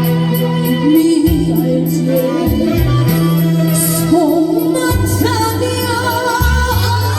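Trot song sung live over a recorded backing track: a voice holding notes with vibrato above a bass line that changes note every second or two.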